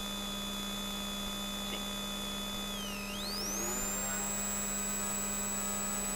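Steady electrical hum with several fixed whining tones in the onboard audio. About three seconds in, a high whine dips in pitch, then climbs to a higher pitch and holds.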